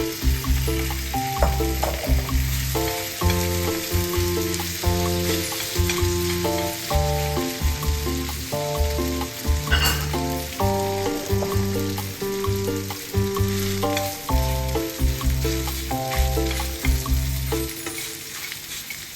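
A vegetable pancake sizzling as it fries in oil in a pan, under background music of held notes with a bass line that stops near the end.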